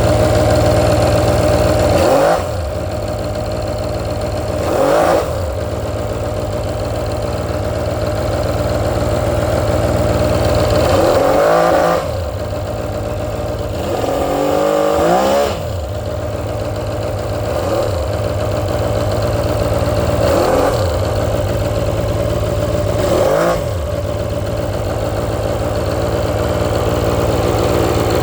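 Polaris Virage personal watercraft's two-stroke engine running out of the water's load, revved up and let drop back several times. The owner suspects an exhaust leak.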